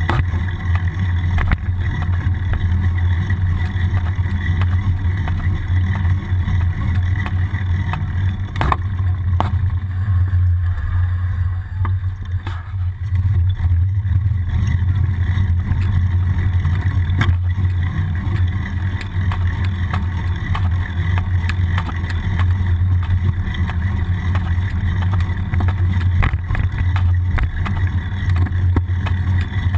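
Steady low rumble of a bicycle rolling on a street, tyre and road vibration and wind picked up by a bike-mounted action camera, with scattered small clicks and knocks from bumps. The rumble dips briefly about twelve seconds in.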